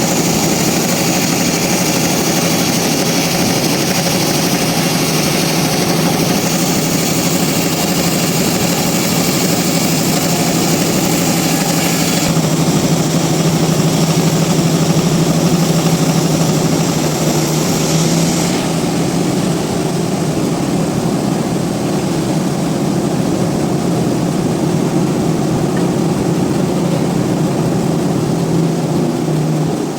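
Sawmill machinery running steadily, a loud even mechanical noise with a constant hum. It grows brighter and a little louder about twelve seconds in, then the higher part drops away about eighteen seconds in.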